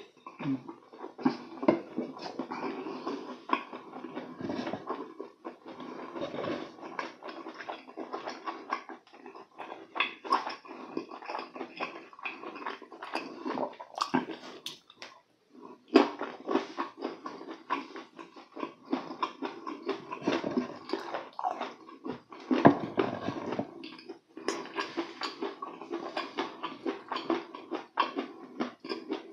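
Close-miked chewing and lip-smacking of red-sauced chicken, with frequent wet, sticky clicks of mouth and sauce, mukbang-style.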